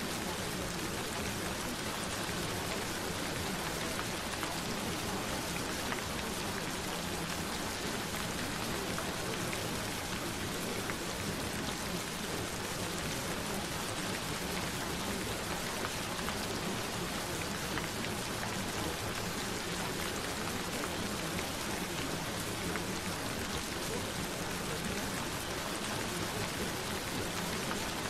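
Gentle rain falling steadily: an even hiss of many fine drops pattering on a surface, without a break.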